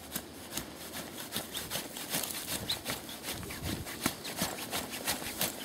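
A long-handled hand tool scraping and knocking as it breaks up and digs soil out of a narrow fence-post hole, in irregular short strokes.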